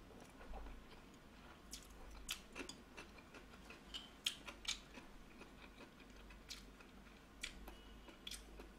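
Faint, scattered wet clicks and smacks of someone chewing instant noodles, with no steady rhythm.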